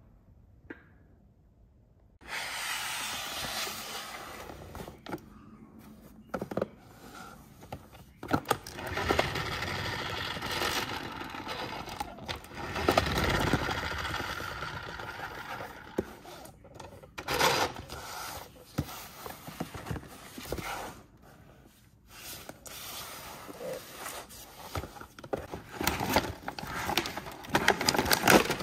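Hands scraping and rubbing a cardboard toy box and handling the toy's clear plastic packaging, starting about two seconds in, with sharp clicks and crinkles that grow denser and louder near the end.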